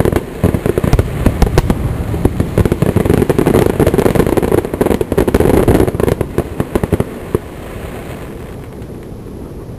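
Aerial fireworks barrage: many rapid, overlapping bangs and pops, thinning out about seven seconds in to a lower rumble with only a few scattered pops.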